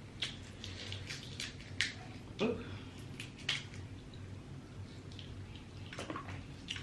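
Close-miked eating of a seafood boil: chewing with scattered small clicks and cracks of shell, over a steady low hum.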